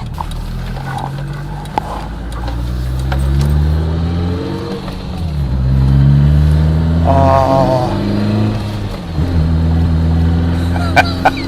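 BMW E30 M3 Evo 2's S14 four-cylinder engine pulling through the gears. Its pitch rises under acceleration, drops at a gearshift about five seconds in, climbs again, and eases off near the end.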